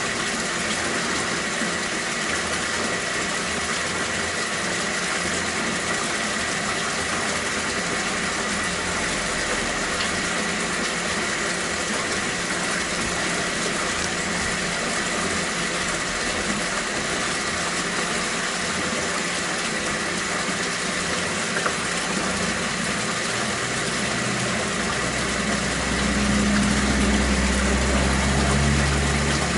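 Steady hiss of running water from an aquaponics system, with a faint steady high tone over it. A low rumble swells in near the end.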